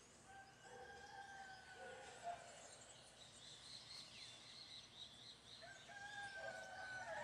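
A rooster crowing twice, faint, each crow drawn out for about two seconds, over quiet outdoor background.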